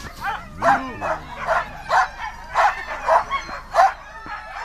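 Malamute-type sled dogs play-barking and yipping in a quick series of about eight short, sharp barks, roughly two a second.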